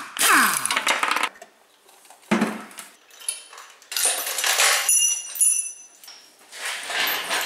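Pneumatic impact wrench spinning on a flywheel bolt, its whine falling for about the first second. From about four seconds in, the steel lifting chain of an engine crane clinks and rattles as it is unhooked from the engine.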